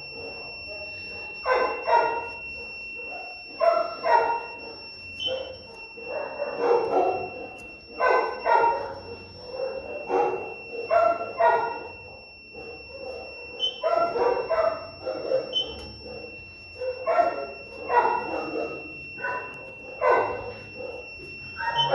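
A dog barking repeatedly, a call every one to two seconds, over a steady high-pitched electronic tone.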